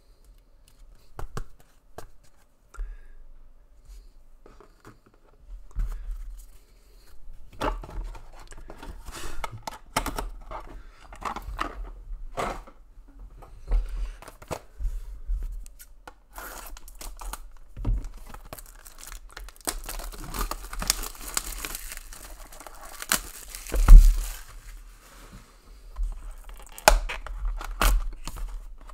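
Trading card packs being torn open by hand, with wrappers tearing and crinkling amid scattered clicks and taps of handling. A louder thump comes about two-thirds of the way through.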